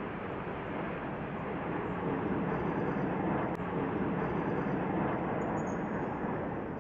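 Jet roar of the Blue Impulse formation of Kawasaki T-4 jets passing overhead, a steady rushing noise that swells a little in the middle.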